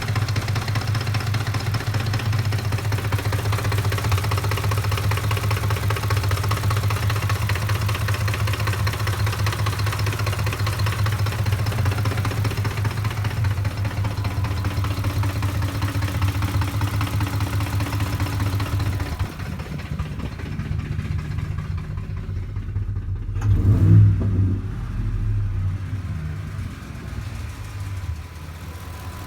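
2007 Ford F-150's 5.4-litre V8 idling roughly, a random rough idle traced to faulty cam phasers and VCT solenoids. The running turns quieter about two-thirds of the way through, with one brief louder surge near the end.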